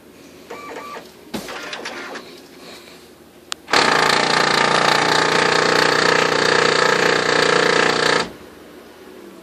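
Oki Data MB480 laser printer mechanism: brief whirs and clicks, then a loud, harsh grinding for about four and a half seconds that cuts off suddenly. The grinding is a fault in the new unit, which the owner links to its error messages and paper jams.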